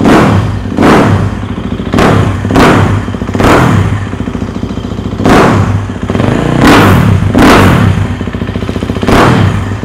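KTM 250 EXC-F's single-cylinder four-stroke engine running at idle and being revved with about nine quick throttle blips, each rising sharply and dropping back to idle. It is a test of the engine's sound after a start.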